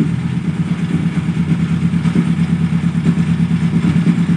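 A small engine running steadily at idle close by: a low, even hum with a fast regular throb.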